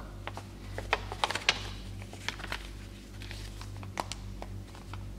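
Paper leaflet being handled and folded: light rustles and small crisp ticks of the paper, several in the first second and a half and a few later. A steady low hum runs underneath.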